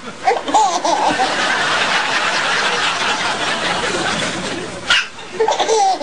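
Baby's belly laughter in bursts, set off by another baby's sharp hiccups. A hiccup comes just before five seconds in, and a fresh burst of laughter follows at once.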